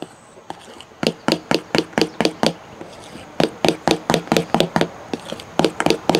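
A utensil knocking against a bowl in quick, even strokes, about four a second, as guava pulp is mixed by hand into stiffly beaten egg whites. The strokes pause briefly about two and a half seconds in.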